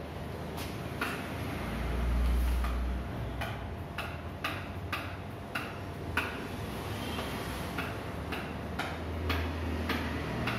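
Whiteboard marker tapping and stroking on a whiteboard: irregular sharp ticks, about one or two a second, as nuclei are dotted and outlines drawn. A low rumble swells briefly about two seconds in and again near the end.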